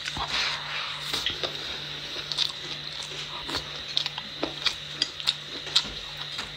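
Eating close to the microphone: chewing mouthfuls of potato rice with stir-fried peppers, with frequent light clicks of chopsticks against the bowl. A faint steady hum runs underneath.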